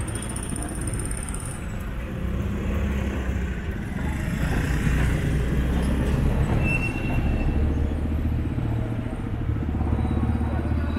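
Street traffic at close range: the engines of motorcycle tricycles and scooters run and pass, and a jeepney goes by close about halfway through. A steady low engine drone runs underneath throughout.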